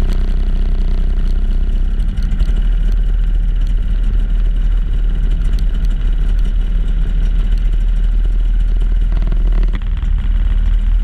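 Snowmobile engine running loudly and steadily, with a brief dip near the end.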